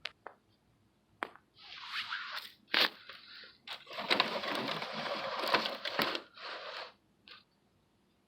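Gritty scraping and crunching in several bursts, the longest lasting about three seconds, with a few sharp clicks near the start.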